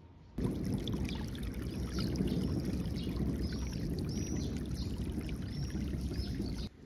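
Water pouring and running across a flooded lawn, with small birds chirping over and over above it. The sound starts suddenly about half a second in and cuts off just before the end.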